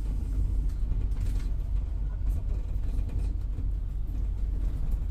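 Steady low rumble of a bus in motion, engine and road noise heard from inside the bus.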